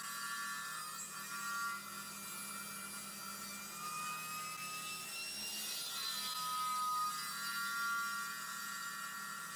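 Table saw running with a steady whine, its blade ripping thin strips off a small hardwood block.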